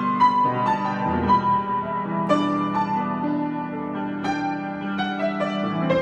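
Solo piano improvisation: a melody line with chords struck every half second to second, ringing over held low notes.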